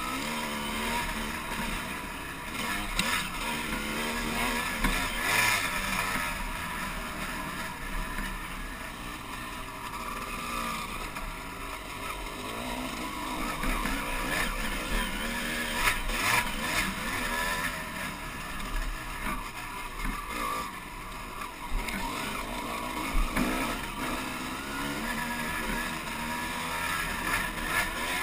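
Dirt bike engine running as it rides a rough desert trail, its pitch rising and falling with the throttle, with occasional sharp knocks from the bumps.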